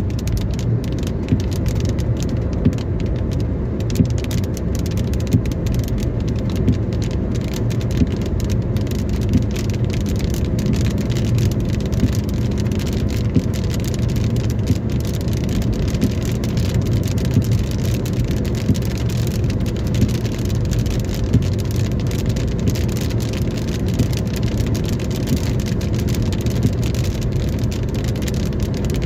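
Car in heavy rain, heard from inside: a steady low drone of the car on the road, with raindrops ticking on the body and glass. A regular tap about every second and a half.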